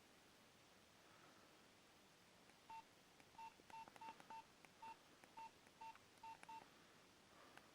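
Nokia 2310 keypad tones: about ten short single-pitch beeps, each with a faint key click, irregularly spaced over some four seconds starting nearly three seconds in, as keys are pressed between ringtones. Near silence before the beeps.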